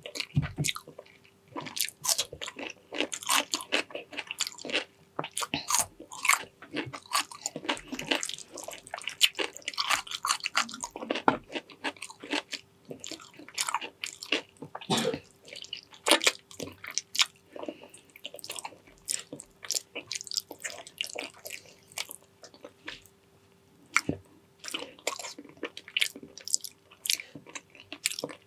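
Close-up chewing and biting of braised pig's trotters: an irregular, steady run of mouth clicks, with a brief lull about two thirds of the way through.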